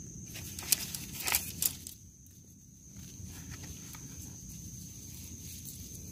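Outdoor ambience with a steady high-pitched insect drone over a low wind rumble; three or four sharp clicks come between about a second and two seconds in.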